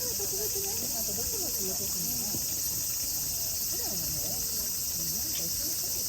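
A steady, dense chorus of insects shrilling high, with many voices chattering underneath.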